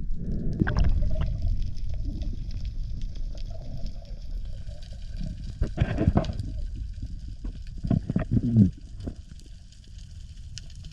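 Underwater sound on a diver's camera: a low rush of moving water with bubbly gurgling bursts about a second in, around six seconds and around eight seconds in, after which it goes quieter.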